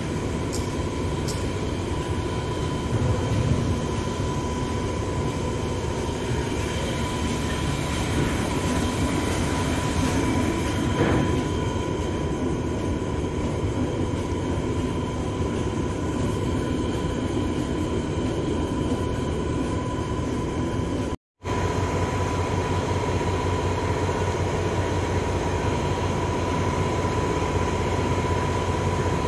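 Steady industrial machinery noise from an offshore oil platform, a dense continuous rumble with a constant high tone running through it. It cuts out for an instant about two-thirds of the way through and resumes with a heavier low hum.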